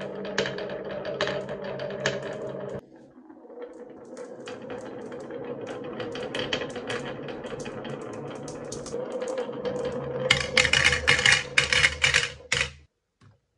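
A stream of marbles rolling down a wavy wooden track: a steady rumble with frequent clicks as they knock against each other and the carved curves. About ten seconds in come the loudest sounds, a quick run of clacks as the marbles drop into a plastic toy truck bed, which stops suddenly shortly before the end.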